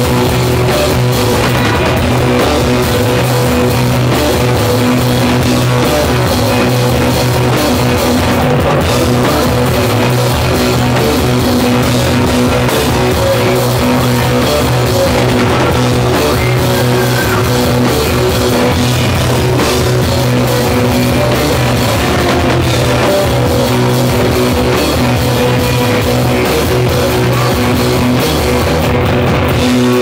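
Live rock band playing loud electric guitar and drum kit, with a steady low droning note held underneath.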